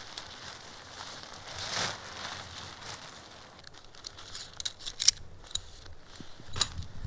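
Tipi tent fabric rustling and crinkling as it is handled during pitching. About two seconds in there is a swell of rustling, and in the second half a string of sharp clicks and taps.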